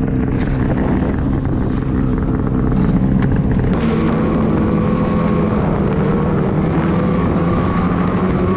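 Snowmobile engine running as the sled rides along, with wind on the microphone; the engine note changes about four seconds in as the sled gets under way.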